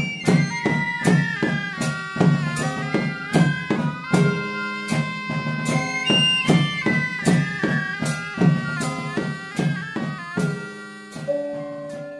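Background marching music: a reedy wind instrument plays a melody over a low steady tone and regular drum beats, in the style of Yogyakarta palace-guard (bregada) music.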